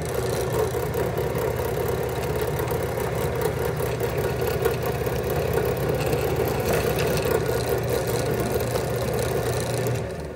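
Benchtop drill press motor starting up and running steadily while its bit drills a center hole through a thin textured metal sheet. It is switched off shortly before the end and winds down.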